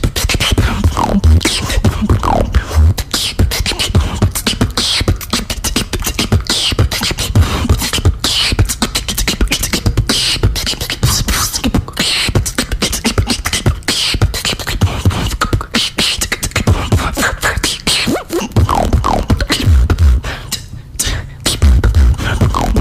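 Female beatboxer performing a fast solo beatbox routine: rapid percussive clicks and snares over deep bass kicks, with short pitched glides woven in and a brief drop in the beat about three-quarters of the way through.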